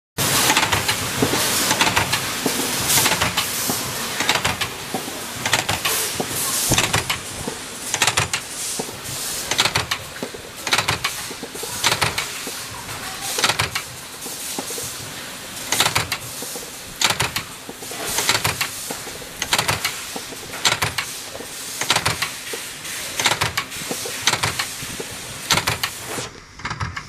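Mechanical punch press stamping small metal door-hinge parts, striking in a steady rhythm about once a second, over a continuous machinery hiss and hum. The high hiss drops away near the end.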